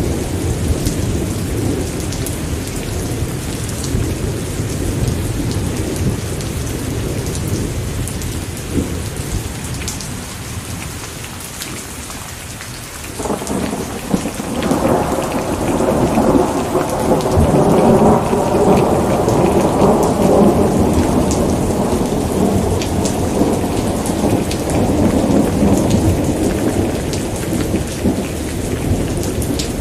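Steady heavy rain with rolling thunder. An earlier low rumble dies away over the first dozen seconds, then a new thunder roll starts suddenly about 13 seconds in, swells, and slowly fades under the rain.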